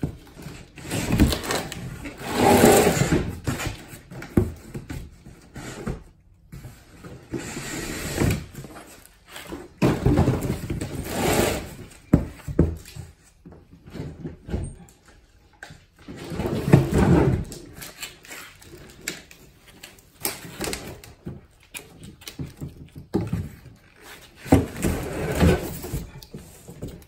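Cardboard carton and packing being handled as a boxed lawn mower is unpacked: rustling, scraping and knocking in irregular bursts, with the loudest handling about two seconds in, around ten to twelve seconds in, and again near the end as the mower comes out of the box.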